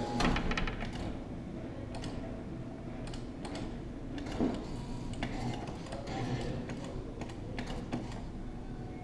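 Irregular plastic clicking from a claw machine's joystick and buttons as the claw is steered, over steady arcade background noise.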